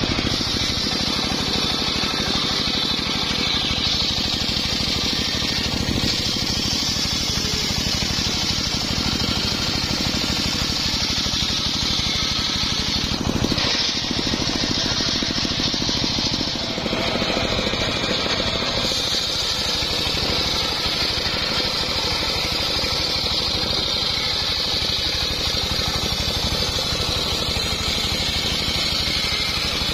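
Homemade motor-driven circular sawmill ripping a log lengthwise. The large blade cuts steadily through the wood over the continuous drone of the machine.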